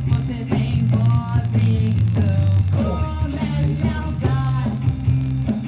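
Rock song with a vocal line sung in Portuguese over electric guitar and bass guitar, with a steady bass line.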